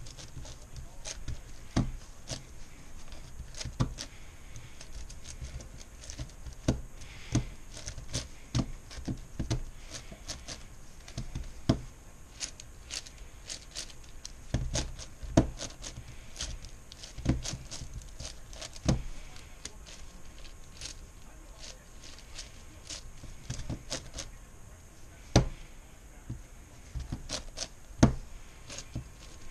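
Plastic layers of a MoYu Meilong 10x10x10 puzzle cube being turned one-handed during edge pairing: irregular clicks and clacks, several a second, with an occasional louder knock.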